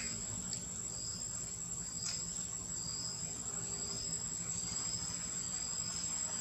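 Insects chirring steadily in the forest: one constant high-pitched tone with a second, slowly wavering tone just below it, over a low background hum.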